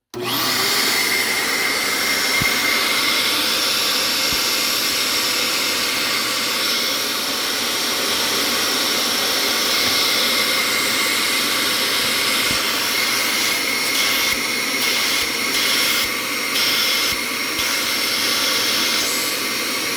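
Shop-Vac Micro vacuum switched on at the start and running steadily, pulling suction through a vacuum clamp table via a hose and valve. A steady whine sits in the rush of air early on, and the hiss changes briefly several times in the second half.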